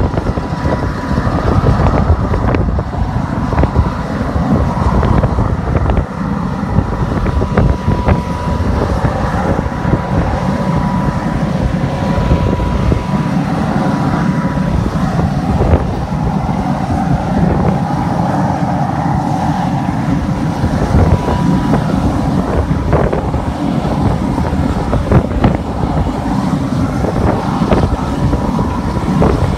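Diesel farm tractor engine running steadily as it pushes a jet back, with wind buffeting the microphone. A steady high whine is heard over it for roughly the first half, then fades.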